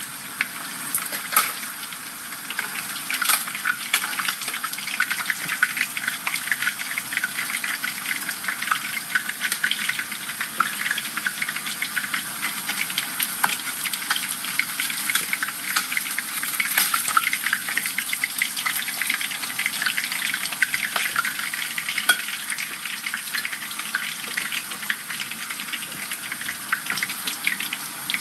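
Whole dorado fish deep-frying in a pan of hot oil: steady sizzling with dense, fine crackling and popping.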